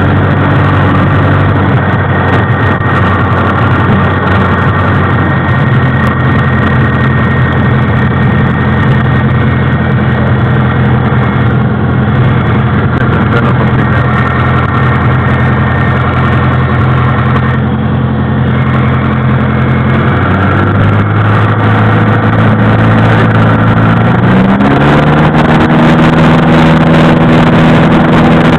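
Piper PA-28 Warrior's four-cylinder Lycoming engine and propeller heard from inside the cabin, running steadily at low power while taxiing and lining up. Near the end the engine note rises in pitch and grows a little louder as the throttle opens to full power for the takeoff roll.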